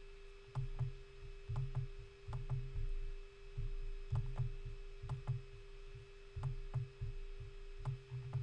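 Computer mouse being clicked and dragged on a desk: irregular soft knocks and short clicks, two or three a second, over a steady faint hum.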